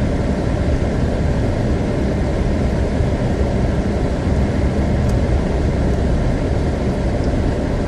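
Steady road noise inside a Pontiac Grand Prix's cabin as it drives slowly over a slushy, snow-covered road, tyres churning through slush.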